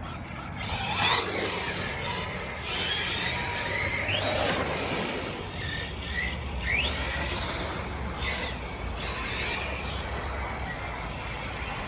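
Redcat Shredder 1/6-scale RC truck's electric drive, a TP Power brushless motor and steel spur gear, whining in several bursts of acceleration, the pitch rising and falling each time.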